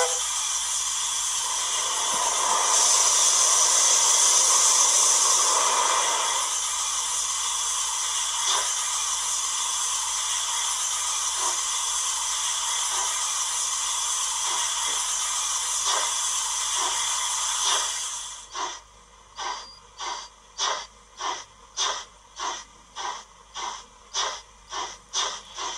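YouChoos Zimo sound decoder in a Hornby model LNER A4 steam locomotive, playing through the model's small speaker: a steady steam hiss, louder for a few seconds near the start. About eighteen seconds in, the hiss gives way to exhaust chuffs that quicken from about one to two a second as the engine gets under way.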